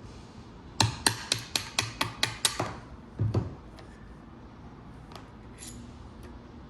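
A hammer tapping a drift punch to drive out a fire control group pin of a Tokarev TX3 pump-action shotgun: about eight sharp metallic strikes at roughly four a second, followed about half a second later by one duller knock.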